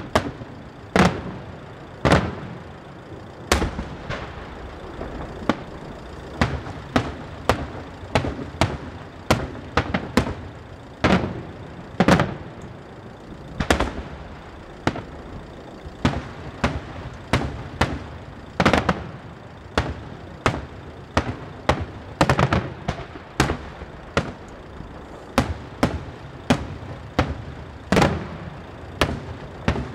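Daytime aerial fireworks shells bursting overhead in a long, irregular run of sharp bangs, one or two a second, some louder than others.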